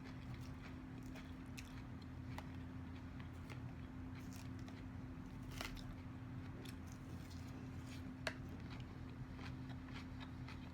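Quiet close-up chewing of a crisp Caesar salad: scattered sharp crunches and clicks from the mouth, over a steady low hum.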